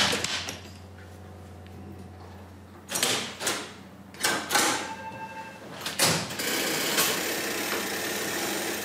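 Clunks and clicks of the levers of an old Siemens & Halske signal-box interlocking frame being turned to set routes. A short ringing tone sounds in the middle. A steady rushing noise follows a heavy clunk about six seconds in.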